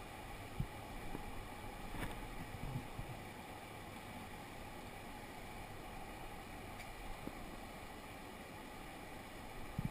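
Small shallow stream running steadily, with a few soft knocks, one just after the start and two close together near the end.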